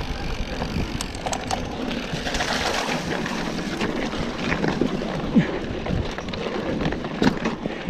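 Mountain bike riding over a stony dirt trail: wind noise on the microphone and tyre noise over dirt and stones, with the bike rattling in scattered knocks.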